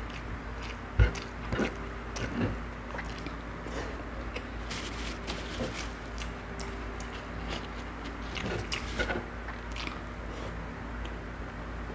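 Close-up eating sounds: a man eating rice and fish with his bare hand, chewing with many short wet clicks, with one louder knock about a second in.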